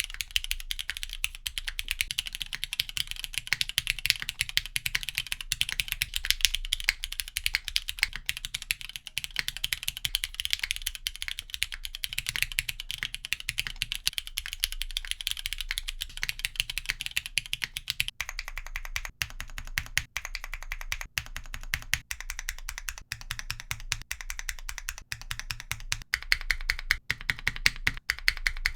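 Steady, fast typing on a Neo60 Core aluminium 60% mechanical keyboard, played first in one mounting and then the other: gasket mount, soft and a little muted, and O-ring mount, firmer at the bottom-out. The sound of the keystrokes changes about two-thirds of the way in, where the mount changes.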